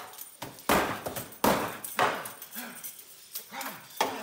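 A heavy wooden practice sword and shield knocking against a wooden training post: a series of sharp, hollow knocks, irregularly spaced about half a second to a second apart. Three loud ones come in quick succession in the first two seconds, and another comes near the end.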